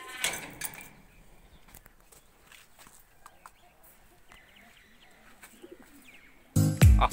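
Faint pigeons cooing, with a few faint clicks. About six and a half seconds in, loud background music with a steady beat starts abruptly and is the loudest sound.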